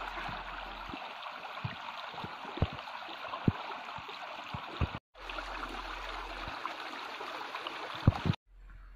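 Steady rush of a shallow stream running over rocks, along with water spouting from bamboo pipes, and scattered sharp knocks. The sound cuts out briefly about five seconds in and drops much quieter near the end.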